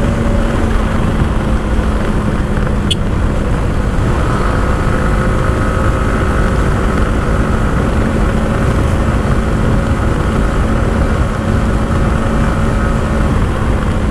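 Yamaha R15 V4 motorcycle's single-cylinder engine running at a steady cruising speed, its even note held under a heavy rush of wind and road noise. A single sharp click about three seconds in.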